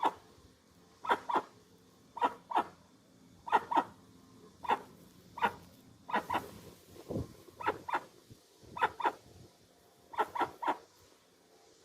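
Dusky-legged guan (jacuguaçu) calling: short, sharp barking honks, mostly in pairs or threes, repeated about once a second, with one lower, longer call about seven seconds in.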